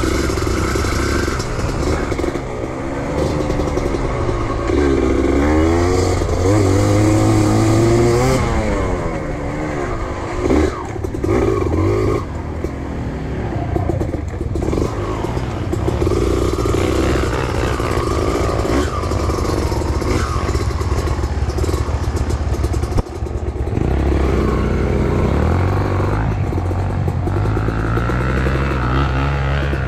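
Small motorcycle engine revving up and down on a dirt trail ride, its pitch rising and falling again and again with the throttle, with a sharp knock about 23 seconds in.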